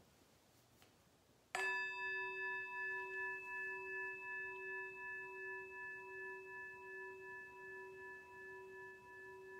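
A meditation bell struck once about a second and a half in, then ringing on with several clear tones and slowly fading, its sound gently wavering in a slow pulse.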